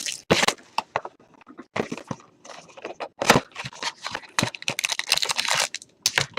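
Trading-card box packaging being torn open by hand: plastic wrap and card packaging crackling, crinkling and tearing in a run of short, irregular rustles.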